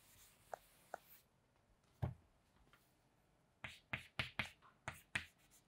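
Chalk tapping and scraping on a chalkboard in a quick run of short, sharp strokes from a little past halfway in, as an asterisk and letters are written. A single dull thump comes about two seconds in.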